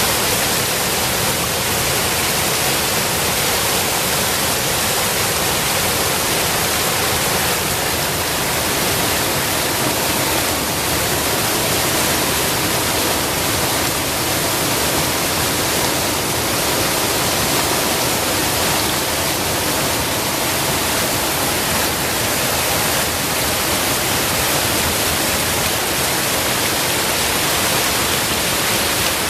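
A small stream rushing and splashing over a drop like a little waterfall: a loud, steady wash of water noise.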